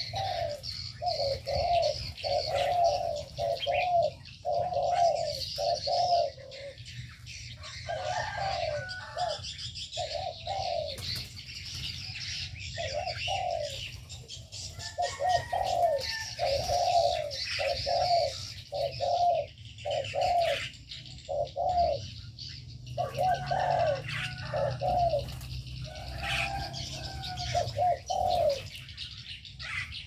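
Spotted doves cooing over and over in short repeated notes, with steady higher chirping of small birds behind them.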